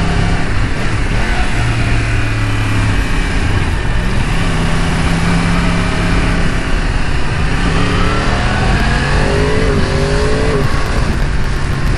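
Yamaha R1's crossplane four-cylinder engine running through a slip-on exhaust as the bike rides through traffic, with steady wind and road rush. About eight seconds in, the revs climb in a rising pitch for a couple of seconds as the bike accelerates.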